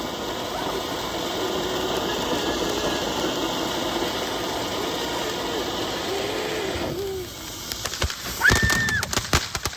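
Consumer firework spraying with a steady hiss for about seven seconds, with a faint wavering squeal in it. It cuts off suddenly and a rapid string of crackling pops follows.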